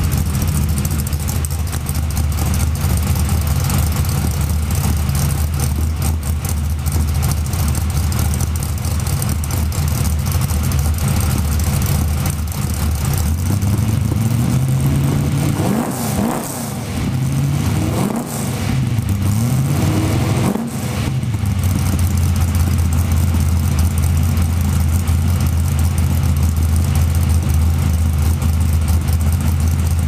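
Chevrolet Malibu G-body's carbureted engine running on a freshly fitted carburetor. It idles steadily, is revved up and down about three times around the middle, then settles back to idle.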